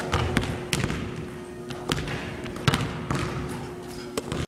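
A basketball bouncing on a hardwood gym floor: a handful of irregular sharp thuds, with a faint steady hum underneath.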